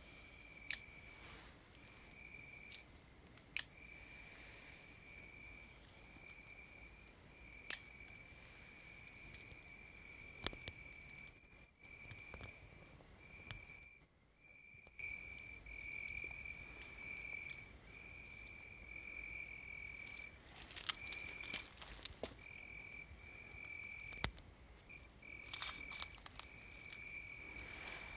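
Night insects, crickets, chirping in a steady high trill that breaks off for short gaps every second or so, with a few faint sharp clicks.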